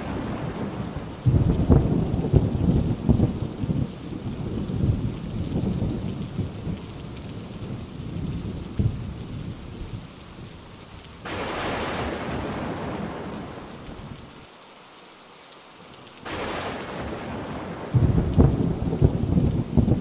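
Thunderstorm: rolling thunder with long low rumbles over steady rain. Around the middle the thunder dies down and the hiss of rain takes over. Loud rumbling thunder comes back near the end.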